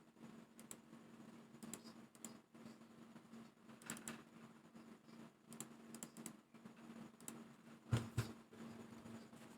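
Monokei x Jujutsu Kaisen mechanical keyboard being typed on: slow, scattered keystrokes, with two louder, deeper strikes about eight seconds in.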